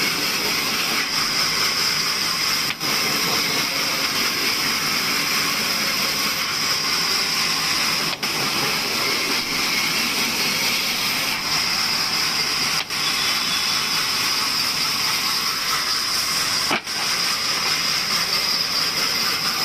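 Table sawmill machine running with a steady hissing whir, dipping briefly four times.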